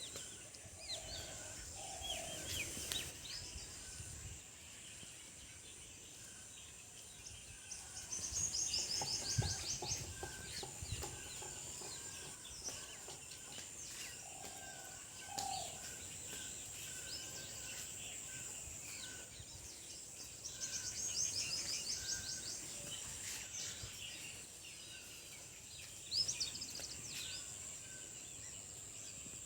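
Chickens clucking and chirping in scattered short calls, with a few quick trilled runs, over a steady high-pitched hiss.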